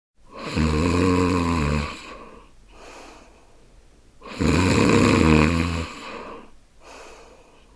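A woman snoring: two loud, rattling snores about four seconds apart, each followed by a fainter breath out.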